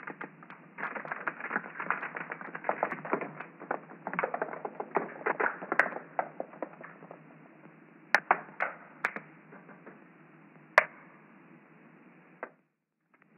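Rapid crackling and ticking of creeping woodsorrel seed pods bursting and flinging out their seeds. The clicks are dense for about the first six seconds, then thin out to a few single sharp clicks.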